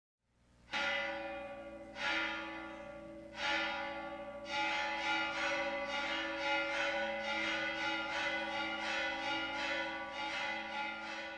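A large bell struck repeatedly: three slow strokes a little over a second apart, then quicker strokes about two a second, each ringing on and overlapping the next.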